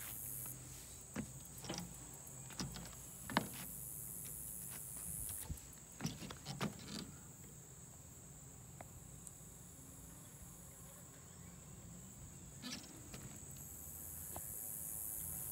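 Insects buzzing high-pitched in a chorus that swells and fades, with a few scattered light knocks during the first seven seconds and one more near the end.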